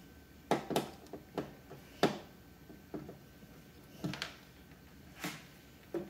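Irregular sharp clicks and taps, about eight in six seconds, as white plastic retaining clips on the sheet-metal back of an LCD TV panel are worked free with needle-nose pliers.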